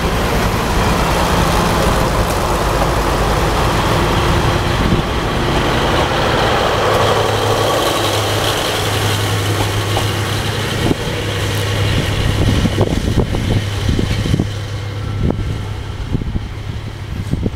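KiHa 58 and KiHa 65 diesel railcars pulling out, their diesel engines running under power with a steady low hum as the cars pass. A run of sharp clacks from the wheels on the rails follows in the second half as the train draws away.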